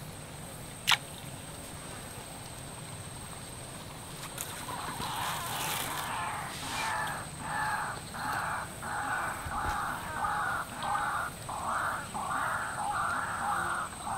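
An animal calling over and over, short harsh calls about two a second, starting about four and a half seconds in and growing louder; a single sharp click about a second in.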